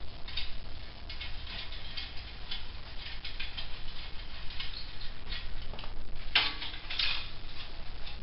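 Light metallic clicks and scrapes of a hand tool working at the silencer joint of a chrome motorcycle exhaust: a run of small ticks, with a louder scrape a little past six seconds in and another about a second later.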